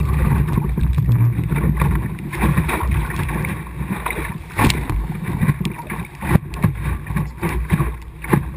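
Optimist sailing dinghy's hull slapping through choppy water, with spray splashing over the gunwale, under a heavy wind rumble on the microphone. A few sharp knocks stand out, the loudest about six seconds in.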